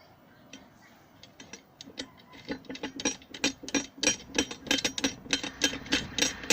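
Regular metallic clicking, about four a second, starting faint and growing louder from about two and a half seconds in, as a nut is worked down an M8 bolt onto a Uni-strut roof-bar fitting.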